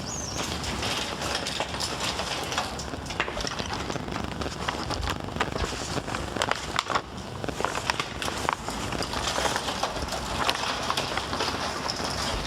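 Shopping cart rolling along a store floor, its wheels and wire basket rattling with a steady clatter of small clicks.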